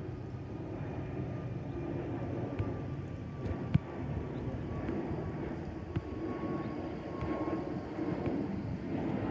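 Jet engine noise from an Airbus A320neo's CFM LEAP-1A turbofans as it climbs out overhead after takeoff: a steady rumble with a faint high tone slowly falling in pitch, growing a little louder in the second half. A few sharp clicks sound about three and a half to four seconds in and again at six seconds.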